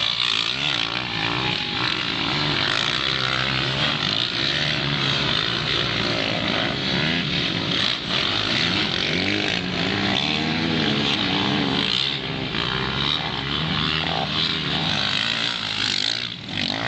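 Several motocross motorcycles racing through a dirt-track corner, their engines overlapping and revving up and down as they brake, accelerate and pass close by.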